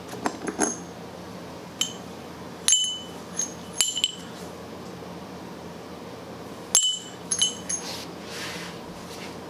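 Small metal engine parts and hand tools being handled: a scattered series of sharp metallic clinks, each with a brief ring, while a lawn mower engine's flywheel nut and starter cup are taken off.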